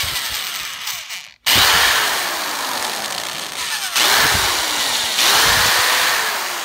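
Electric drill with a twist bit boring into the small metal wedge set in the end of a ball peen hammer's wooden handle, to drill the wedge out and free the head. The drill stops briefly about a second and a half in, then runs on, its pitch sliding down and up as it works.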